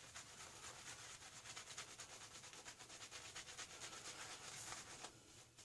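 Faint, rapid swishing and rubbing of a badger-hair shaving brush working shaving soap into a lather on the face, stopping about five seconds in.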